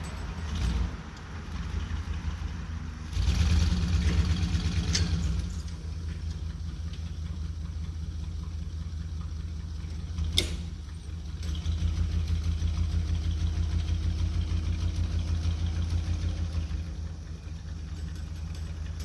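Jeep J20 truck engine running, with two louder stretches where it is revved up, about three seconds in and again from about twelve seconds. A single sharp metallic clank comes about ten seconds in.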